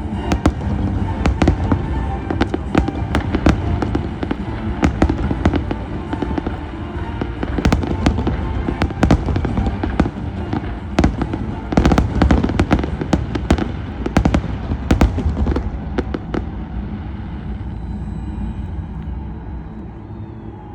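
Fireworks display: rapid bangs and crackling bursts over music, dense for most of the stretch and thinning out about sixteen seconds in.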